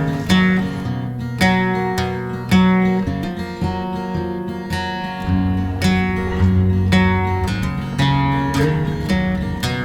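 Background music: a song led by strummed acoustic guitar with a steady beat.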